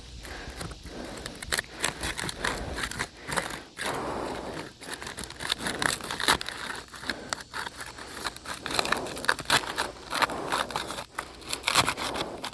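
Asphalt roof shingle being pried loose, its sealant bond tearing with irregular crackling and scraping.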